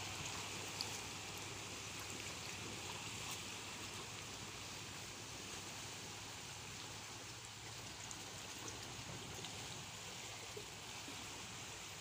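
Small sea waves lapping and splashing against rocks and a concrete seawall, a steady wash of water.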